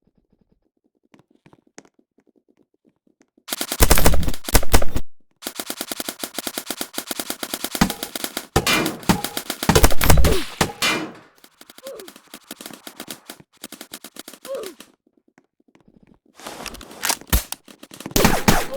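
Several bursts of rapid automatic gunfire with gaps between them. The loudest bursts come about four seconds in and again around nine to eleven seconds in; sparser single shots follow, and another burst comes near the end.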